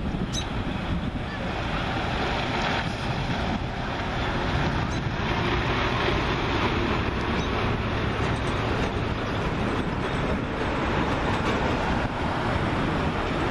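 Steady rushing noise of wind buffeting the microphone outdoors, with a few faint clicks.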